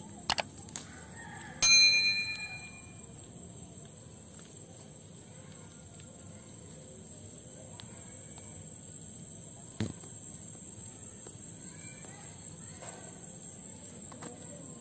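A couple of quick clicks, then a bright ding that rings out and fades over about a second: a subscribe-button sound effect. After it, only a faint steady background with a constant high insect-like whine and one soft knock.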